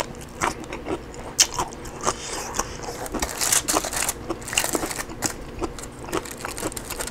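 Close-miked eating of roast rotisserie chicken: chewing and mouth clicks, with the crackle and crinkle of aluminium foil as the chicken is pulled apart on its foil-lined tray, busiest in the middle.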